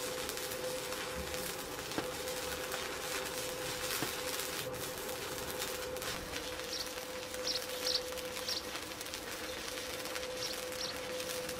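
Stick (arc) welding: the electrode's arc crackling and hissing steadily as it burns into a steel pipe joint, with a steady hum under it.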